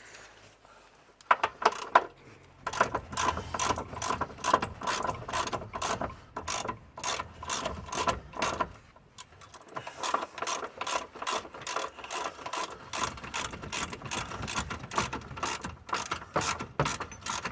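Hand ratchet wrench clicking in a fast, even run of about four clicks a second while a bolt is worked, with a brief pause about nine seconds in.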